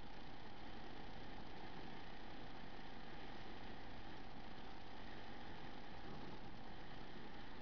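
Motorcycle engine running steadily at an even speed while riding.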